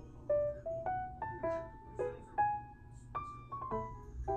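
Background music: a soft piano melody of single notes, each struck and left to fade, about three a second, over a steady low hum.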